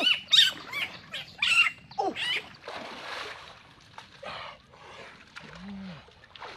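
Splashing as a person wades and lunges through shallow muddy water. Over the first two seconds come several loud, short, high-pitched cries that rise and fall in pitch, and near the end a short low-pitched call.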